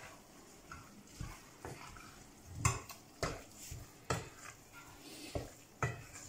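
A wooden spatula stirring minced meat and vegetables frying in a stainless steel pot, knocking and scraping irregularly against the pot's side, loudest a little under three seconds in.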